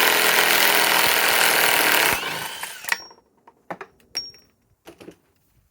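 Cordless impact wrench hammering as it backs out a lag bolt, running for about two seconds before stopping. It is followed by a few sharp metallic clinks.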